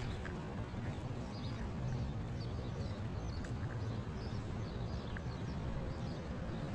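Outdoor street ambience by a busy road: a steady low rumble of traffic and wind, with small birds chirping over it.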